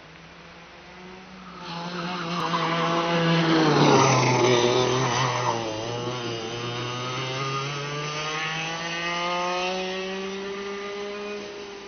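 A go-kart engine approaches and passes close by, loudest about four seconds in, its pitch dropping as it goes past. It then revs up again as the kart pulls away down the track and fades near the end, with a steady lower engine drone underneath.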